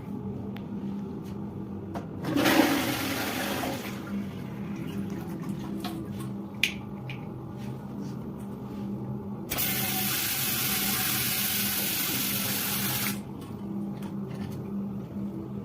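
Water rushing through newly fitted bathroom plumbing: a short loud gush about two seconds in, then a steady hiss of spraying water from about ten to thirteen seconds. A steady low hum runs underneath, with a sharp click partway through.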